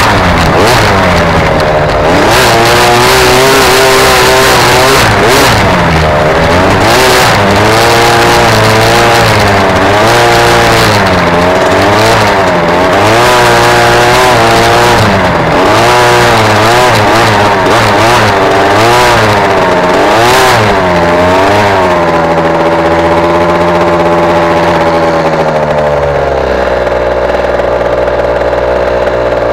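Small off-road motorcycle's petrol engine revving up and down over and over as it is ridden over a dirt track, with wind rushing on the microphone. Near the end it eases off, holds steady for a few seconds, then drops to a steady idle.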